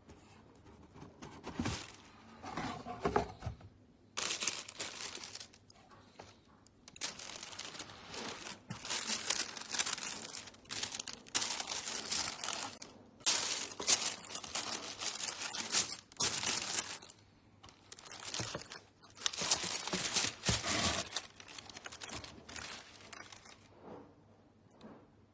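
A cardboard shoebox lid slides off. Then tissue paper rustles and crinkles in irregular bursts as it is unfolded.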